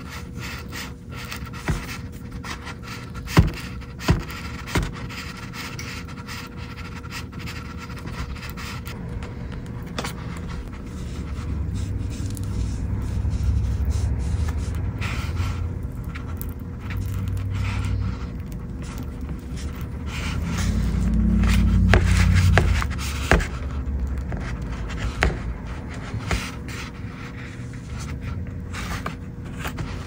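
Small tools scraping and clicking against a tablet's casing and parts during a repair, with a few sharp taps in the first five seconds and a low rumble of handling that swells in the middle.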